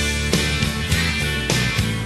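Rock music with distorted electric guitar and a steady drum beat.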